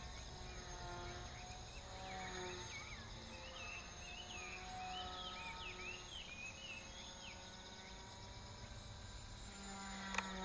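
Faint outdoor insect chirring, steady and high-pitched, with a faint whine underneath that wavers in pitch every second or so.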